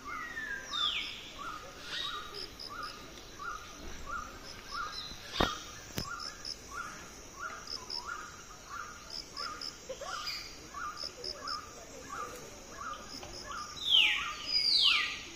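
Wild birds calling in hill country. A short note repeats steadily about twice a second, with small groups of high pips over it, and near the end two loud calls sweep down in pitch.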